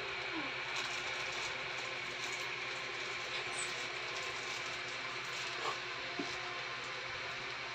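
A steady mechanical hum with hiss, with a few faint clicks.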